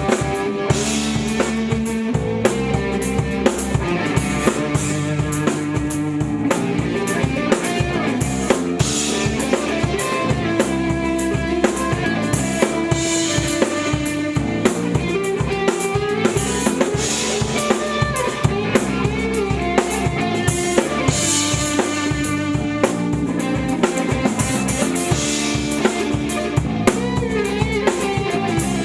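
A band playing at a rehearsal: a drum kit keeps a steady beat, with bass drum and snare hits, over sustained pitched instruments.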